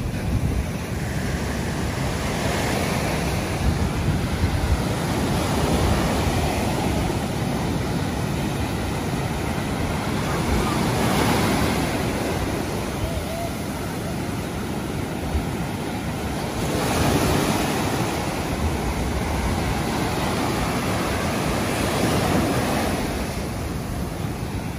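Ocean surf breaking and washing up a sandy beach, a steady rush that swells and eases every few seconds as waves come in, with wind rumbling on the microphone.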